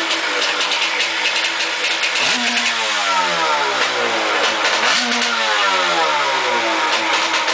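Yamaha Superjet stand-up jet ski's two-stroke engine running out of the water, blipped twice: each time the revs jump up quickly and then sink back slowly, with a crackling exhaust.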